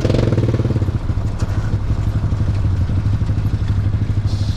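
Small engine of a homemade vehicle running at low speed with a steady rapid pulse, a little louder in the first second before settling.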